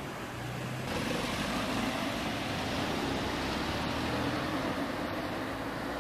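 Street traffic: a car driving by, a steady engine and tyre noise that grows louder about a second in.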